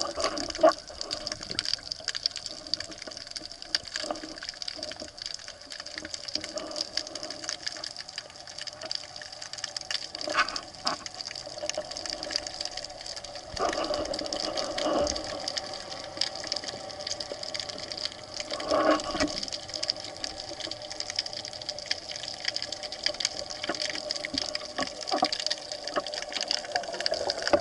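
Underwater ambience picked up by a camera in its housing: a steady hiss full of faint crackling clicks, with a few louder swishes and knocks as the diver shifts.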